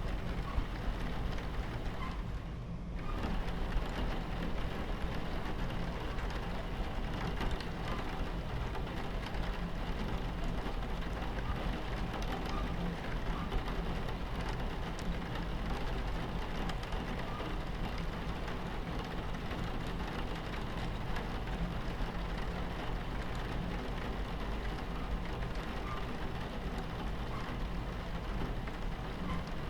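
Rain against a train window with scattered drop ticks, over the steady low rumble of a train running on its tracks. The rain thins out briefly about two and a half seconds in.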